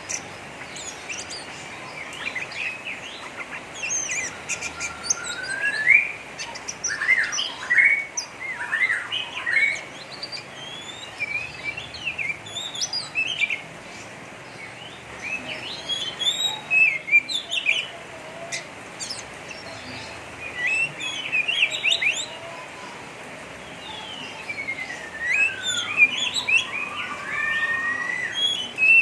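Oriental magpie-robin (kacer) singing in the harsh, rapid chattering 'ngeriwik' style: quick runs of sharp chirps mixed with sweeping rising and falling whistles, in bursts with short pauses between them.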